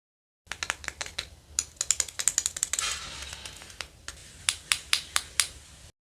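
Hands handling hard toy pieces: a quick, uneven run of sharp clicks and taps, with a short rustle about three seconds in and a few louder taps near the end.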